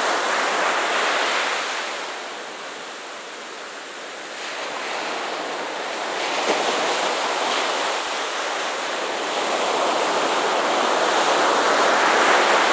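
Ocean surf breaking on the beach, a steady wash that swells and ebbs: loud at first, easing off for a couple of seconds, then building again to its loudest near the end.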